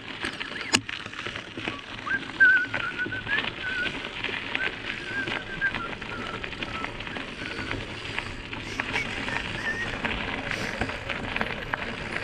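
Mountain bike rolling over a rough dirt trail: tyre noise with frequent clicks and rattles from bumps. A thin wavering whistle runs over it from about two seconds in to about six seconds in.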